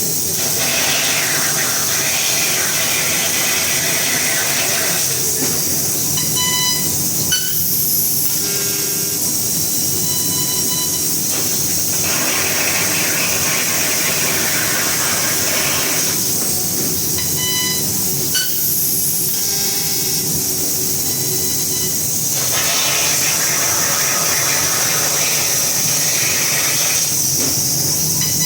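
Laser cutting machine cutting 22 mm plate: a loud, steady hiss that alternates every few seconds between fuller stretches and quieter spells marked by short high tones.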